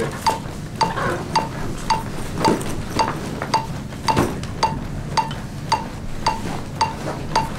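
A CPR metronome beeping steadily just under twice a second, about 110 a minute, to pace chest compressions. Each beep comes with the click of a compression on a CPR training manikin.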